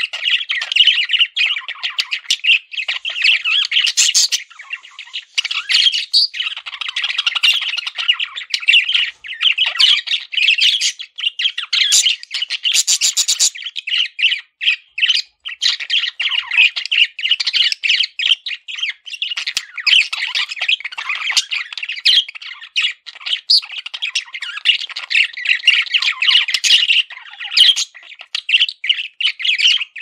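Several budgerigars chattering and warbling nonstop, a dense run of fast chirps and squawks with a few sharper, shriller calls about four seconds in and again around twelve to thirteen seconds.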